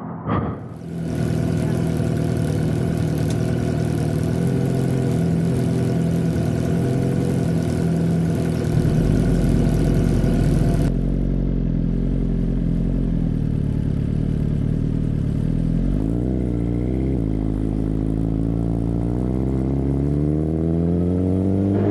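Suzuki GSX-R1000 inline-four motorcycle engine ticking over at a steady idle, with a steady hiss over it that cuts off suddenly about halfway. A quick throttle blip comes about three quarters of the way in, then the engine revs up with rising pitch near the end as the bike pulls away.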